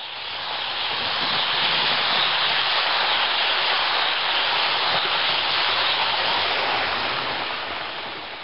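Roco H0 model Railjet trainset rolling past on the layout track, wheels on the rails giving an even rushing noise that builds over the first couple of seconds and fades toward the end as the train moves away.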